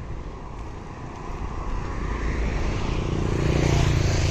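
A motor vehicle on the road approaching and passing close by, its engine hum and tyre noise swelling steadily and loudest just before the end.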